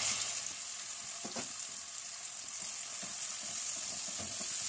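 Freshly added raw sliced onions sizzling in hot oil in an aluminium pot, with a steady high hiss. A wooden spatula stirs through them, making a few faint knocks and scrapes.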